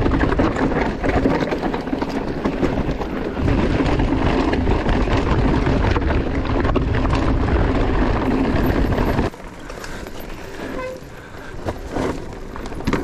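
Mountain bike running fast down a rough trail: wind rushing over the microphone and tyres rumbling on the ground. About nine seconds in it cuts abruptly to a much quieter stretch with a few clicks and knocks.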